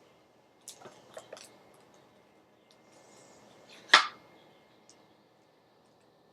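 Handling of a tarot deck's cardboard box and cards: a few light clicks and taps about a second in, then one sharp tap or knock about four seconds in.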